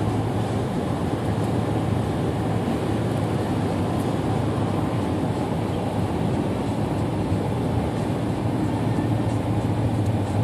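Steady road noise of a moving car heard from inside the cabin: a continuous low rumble of tyres and engine with no change in pace.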